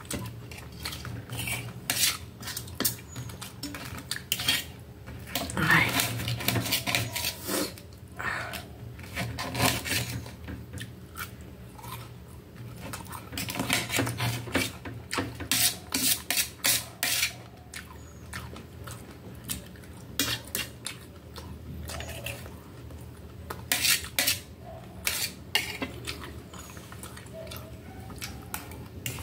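Fork and knife clinking and scraping on a metal plate while cutting breaded chicken, many short sharp clicks scattered throughout.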